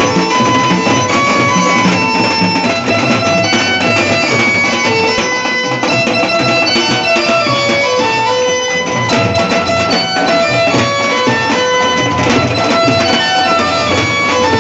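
Procession drums, barrel drums beaten with sticks and a bass drum, playing a fast continuous beat, with a melody of long held notes over them.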